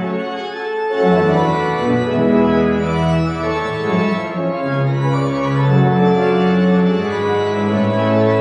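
Church pipe organ playing a Christmas voluntary: held chords that change every second or so, with a deep pedal bass line coming in about a second in.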